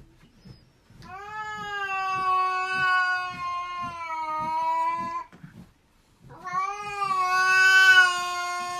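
A cat gives two long, drawn-out yowls, each about four seconds long and steady in pitch. The second one is louder.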